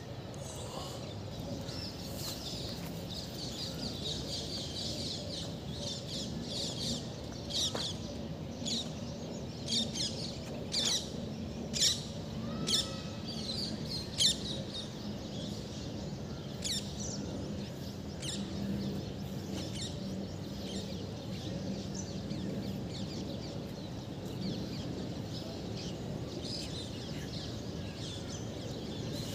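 Birds chirping, with a run of loud, sharp chirps in the middle, over a steady low hum.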